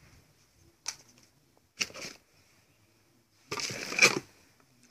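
Cosmetics packages being handled in a cardboard box: two short sharp clicks, then a longer rustle about three and a half seconds in.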